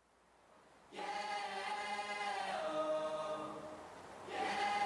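Song intro of wordless choir-like voices holding sustained chords. They come in about a second in, shift to a new chord midway, fade briefly and swell up again near the end.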